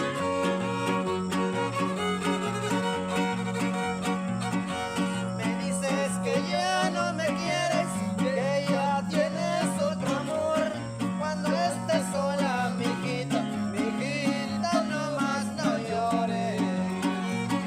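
Son huasteco trio playing an instrumental passage: a violin melody with wide vibrato over strummed jarana and huapanguera, the huapanguera bass alternating between low notes in a steady lilting rhythm.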